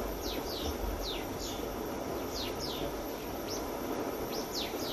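Small birds chirping, a string of short notes that each slide downward in pitch, over a steady rushing noise.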